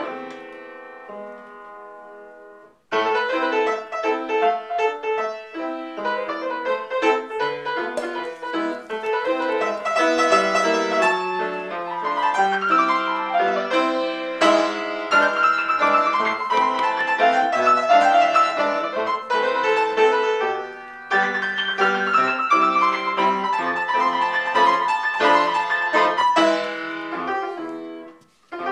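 Piano music: a chord rings and fades, then the piano plays on steadily from about three seconds in, with a short break about two-thirds of the way through.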